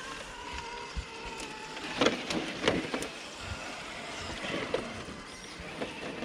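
Electric motor and gears of a radio-controlled scale crawler truck whining faintly with a steady pitch. Several sharp knocks and clacks come about two to three seconds in and again near five seconds, as the truck works over rocks.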